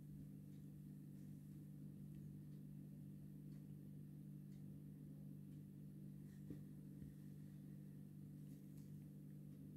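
Near silence: room tone with a steady low hum and a faint tap about six and a half seconds in.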